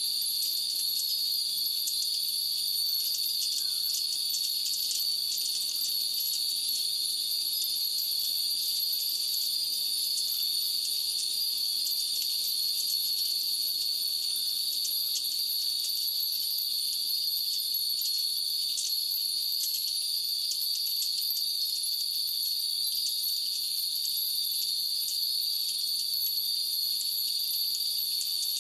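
Many Japanese wind bells (fūrin) tinkling continuously in the breeze, a dense scatter of small bright rings, over a steady high insect drone.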